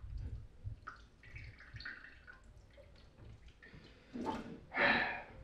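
Water splashing and dripping at a kitchen sink during washing up, with light clicks and knocks, and two louder splashes about four and five seconds in.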